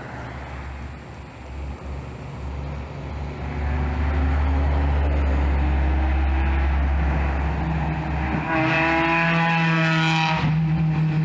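Muffler-deleted Toyota Celica four-cylinder engine accelerating: its note climbs in pitch and gets loud about four seconds in, then revs harder and higher near the end, loud and pretty deep.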